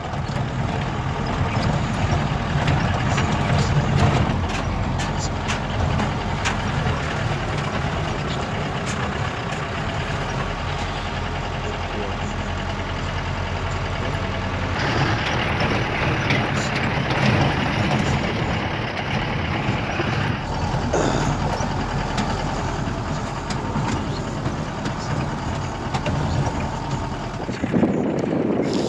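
Vehicle engine and road noise heard from inside the cab while driving on a rough dirt road. The sound gets louder and brighter for several seconds around the middle as a Tata truck passes close by.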